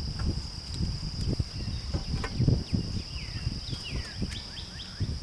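Steady high insect drone with a few short falling bird chirps about three to four and a half seconds in, over irregular low rumbling thumps.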